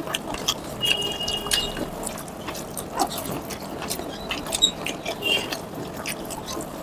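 Close-up eating sounds: fingers squelching rice and curry gravy together and wet chewing, a steady run of small clicks and smacks.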